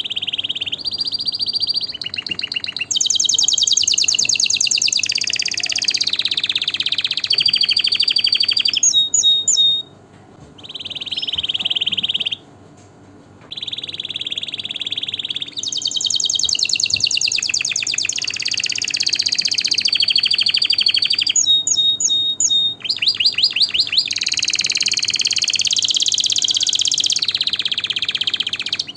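Domestic canary singing a long song of rapid trills that shift in pitch from one phrase to the next, with a few short, sharp whistled notes among them. The song breaks off briefly about ten seconds in and again a little later.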